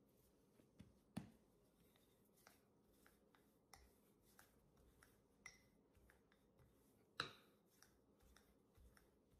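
Faint, scattered taps and knocks of hands patting out bread dough and a wooden rolling pin rolling it across a granite countertop, with louder knocks about a second in and about seven seconds in.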